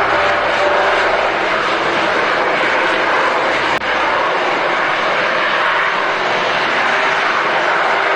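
Jet fighter engines roaring steadily in a flyby sound effect, with a brief click and drop in level about four seconds in.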